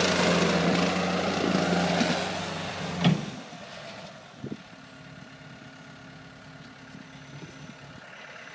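Cat 277B compact track loader's diesel engine running steadily. About three seconds in there is a clunk and the engine sound drops sharply to a much quieter steady hum.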